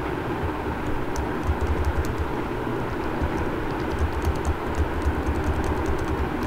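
Steady low background rumble, with a scatter of faint, quick clicks at the computer starting about a second in.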